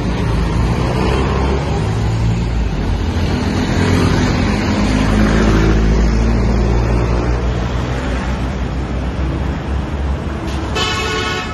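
Road traffic with a vehicle engine rumbling past close by, loudest about halfway through. A car horn sounds one short honk near the end.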